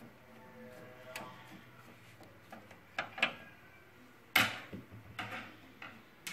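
Irregular clicks and knocks of parts being handled on an HP LaserJet P3005 printer that is being worked on, a handful of them spread over several seconds, the loudest a little past four seconds in, over a faint low hum.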